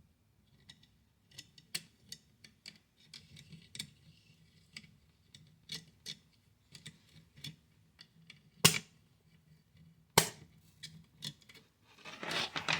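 Scattered sharp clicks and knocks, with two loud ones about nine and ten seconds in, then a rustling noise near the end.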